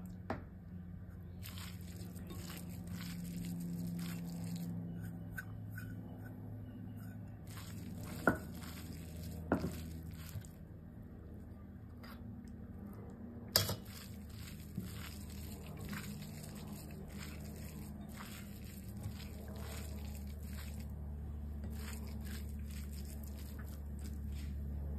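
A hand squishing and tossing shredded boiled shark meat with spices and grated coconut in a ceramic dish, a soft, crackly squelching with a few sharp clicks, over a steady low hum.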